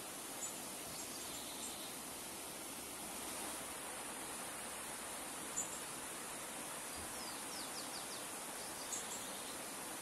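Shallow river running over a stony bed: a steady, even rush and babble of water. A few brief high chirps sound over it.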